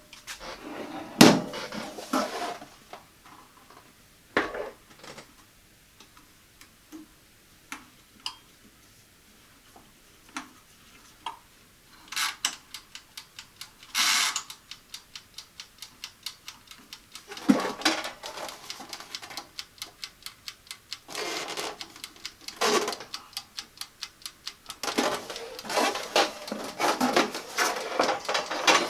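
Countertop toaster oven being handled: scattered knocks and light metal clatter, and several runs of rapid, even clicking at about four or five a second from a dial being turned.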